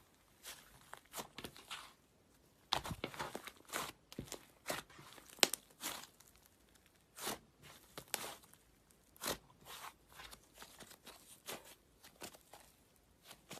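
Slime being squeezed, stretched and poked by hand, giving irregular sharp crackles and sticky snaps with short quiet gaps between them.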